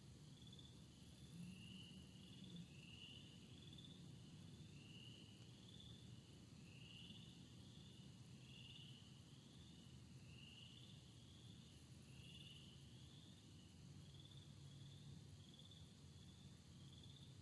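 Faint outdoor chorus of short, high chirps from several overlapping callers, repeating irregularly, over a low steady hum.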